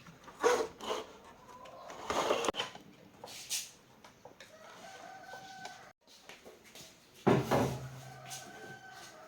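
A rooster crowing and chickens clucking, mixed with scattered clatters and knocks. The loudest burst comes a little past seven seconds in.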